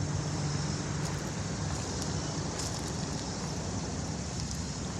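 Steady road traffic noise from passing cars, with a low engine hum that fades out about a second and a half in.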